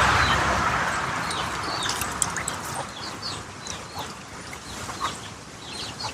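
Birds chirping in short, high, falling calls repeated many times. At the start, a trickle of liquid being poured fades out within about a second.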